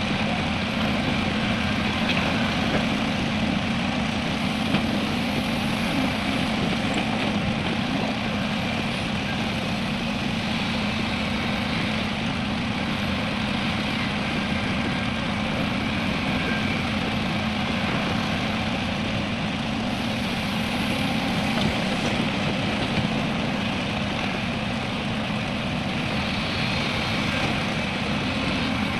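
Heavy diesel engine of an excavator or dump truck running steadily, a constant low drone.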